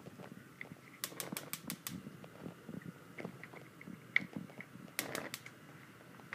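Gas stove's electric spark igniter clicking rapidly as a burner is lit: a run of about six clicks a little after a second in, and a shorter run of three or four near the end.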